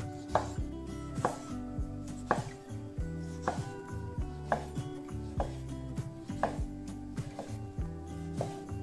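Chef's knife slicing through a tomato and knocking down onto a wooden cutting board, one cut about every second.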